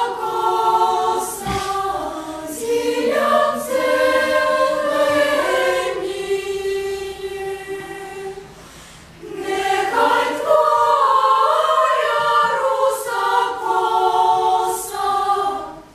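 Children's choir singing in several parts. The voices pause briefly about halfway, come back in together, and break off near the end.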